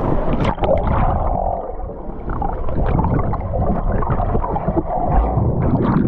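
Water gurgling and sloshing around a camera microphone dunked under the surface of a swimming pool. The sound is muffled and dull, with no high end, and full of small irregular bubbling pops.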